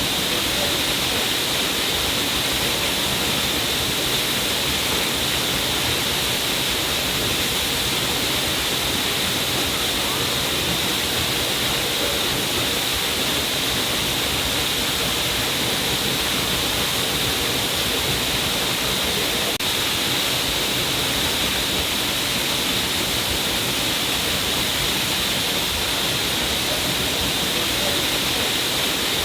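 Water falling down a cliff face in a steady, unbroken rush.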